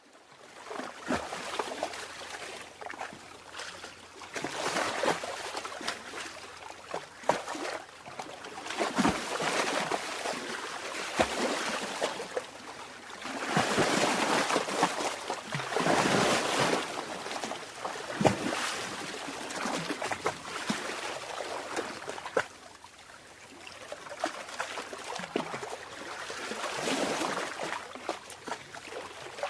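Sea water lapping and sloshing, swelling and falling back every few seconds, with small sharp splashes.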